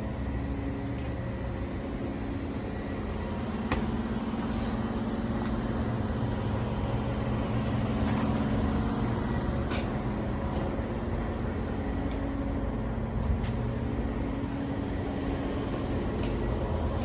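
Car engine running steadily with a low hum, with a few faint clicks along the way.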